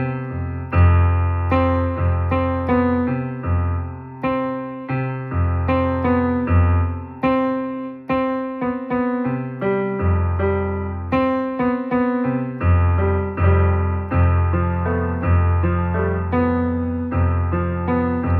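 Piano-sound keyboard playing a slow, soft passage of struck chords over low bass notes, each chord fading after it is struck.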